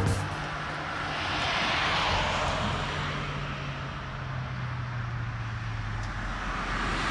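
Road traffic going by, its noise swelling and fading about two seconds in and again near the end, over a steady low engine hum.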